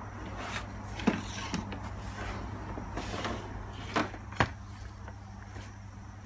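Several light knocks and clatters over a steady low hum, the sharpest about a second in and two more close together about four seconds in.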